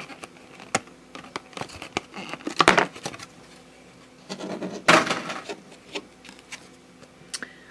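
Stiff clear plastic card insert being flexed and pried by hand to free the card inside, giving scattered sharp clicks and crackles, with two louder crinkling bursts about a third and two-thirds of the way through.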